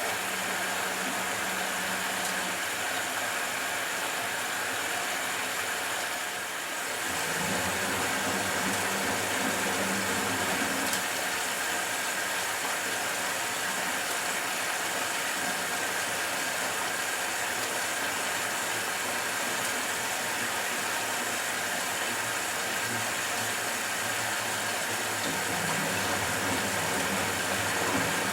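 Matura Autostatic 850 washing machine running a wash cycle: a steady motor hum and drum noise with a constant high whine, which dips briefly about six seconds in.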